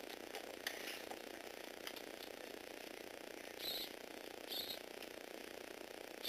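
Two short whirring bursts from the small electric motor and gearbox of a remote-controlled Lego Technic tracked vehicle, about three and a half and four and a half seconds in, over faint hiss. A few light clicks come in the first second.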